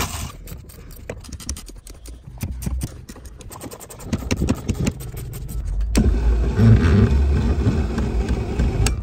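Milwaukee cordless impact wrench hammering on a seat-bracket bolt to back it out, first in short rattly bursts, then in a longer, louder run over the last few seconds.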